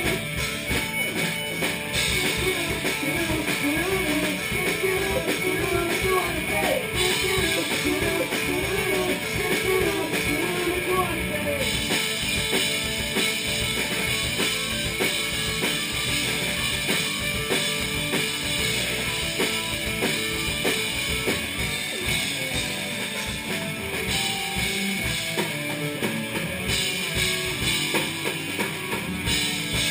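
A band playing live in rehearsal: guitars over a drum kit, with a melody line moving up and down during the first ten seconds or so.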